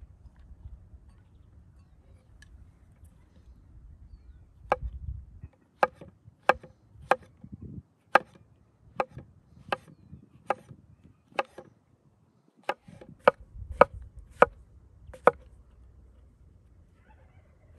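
Kitchen knife slicing button mushrooms on a round wooden chopping board, the blade knocking the wood in a steady series of about fifteen sharp chops, roughly one every two-thirds of a second. The chopping starts about five seconds in and stops shortly before the end.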